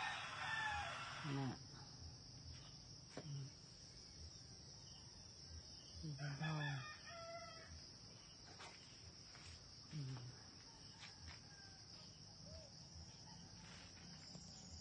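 Rooster crowing faintly a few times: at the start, about six seconds in and again near ten seconds. A steady high-pitched hiss runs underneath.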